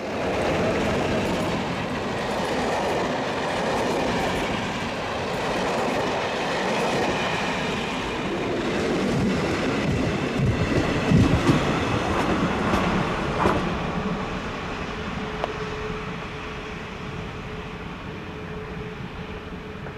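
Trains passing close by, their wheels rumbling and clattering over the rails. The noise is loudest about halfway, with a few sharp clicks, then fades as the train moves away. A faint steady tone remains near the end.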